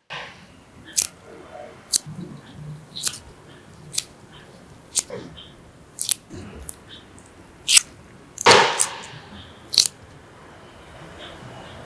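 A series of sharp clicks and knocks, roughly one a second, with one louder rushing scrape about two-thirds of the way through; parts and tools are being handled and fitted together by hand, with no power tool running.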